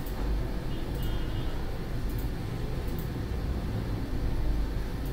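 Steady low background rumble, with a few faint mouse clicks at intervals.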